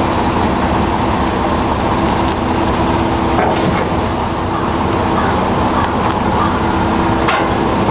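Pickup truck's 5.3-litre V8 running steadily at low revs as the truck creeps up to a car trailer for loading, a low even engine hum under a broad rushing noise. Two brief sharp clicks, one in the middle and one near the end.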